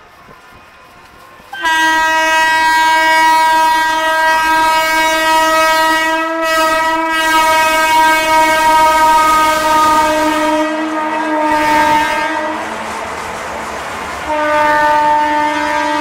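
Locomotive horn of the double-engine push-pull Rajdhani Express. It sounds one long, loud, steady blast starting about two seconds in and held for about eleven seconds, its pitch sagging slightly at the end. A short gap of rushing noise follows, then a second long blast near the end.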